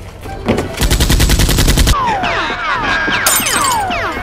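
Rapid automatic gunfire, a fast burst of about ten shots a second lasting roughly a second, followed by a string of falling whistles.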